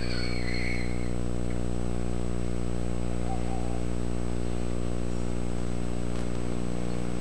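Steady electrical hum with a stack of overtones, unchanging throughout, with a faint high whine above it.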